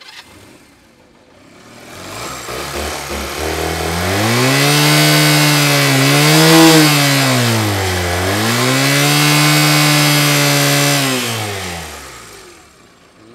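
Honda CD125T's parallel-twin four-stroke engine revved with the microphone held close to it. It climbs from idle, holds at high revs for several seconds, dips briefly about halfway and climbs again, then drops back to idle near the end.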